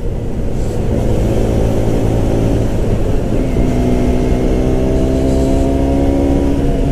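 2017 KTM 125 Duke's single-cylinder engine running through its stock exhaust while riding at speed, with wind rushing over the microphone. The engine note sags slowly, then jumps up in pitch a little over three seconds in and climbs gently as the bike pulls again.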